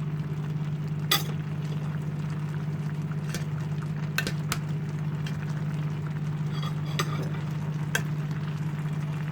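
A pot of vegetables in coconut milk cooking on the stove while being stirred, with about six sharp knocks of the utensil against the pot. A steady low hum runs underneath.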